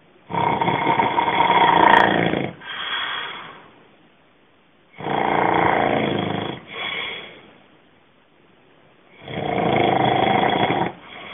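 A sleeping person snoring loudly: three long snores about four to five seconds apart, each followed at once by a shorter, quieter second snore.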